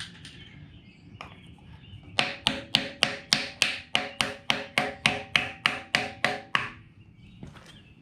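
Hammer blows, a rapid even run of about sixteen strikes, roughly three or four a second, with a metallic ring, driving a part into the engine. The blows start about two seconds in and stop abruptly a little past the middle.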